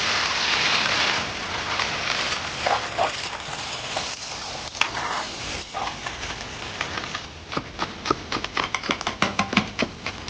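Fish roe and fish maw frying in a pan: a loud sizzle that dies down over the first few seconds. It gives way to a quickening run of sharp clicks and crackles, thickest in the last few seconds.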